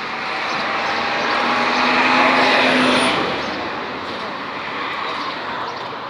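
A motor vehicle driving past on the street, its engine and tyre noise rising to a peak about two seconds in and then fading.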